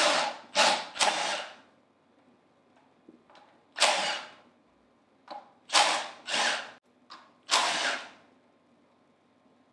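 Cordless impact driver with a half-inch socket backing out the bolts of a Hypro D50 diaphragm pump's top accumulator cover, in a series of short bursts of under a second each.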